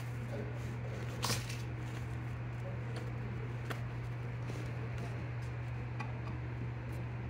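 Plastic sheeting crinkling and rustling in a few short bursts as a kitten moves on it, the loudest about a second in, over a steady low hum.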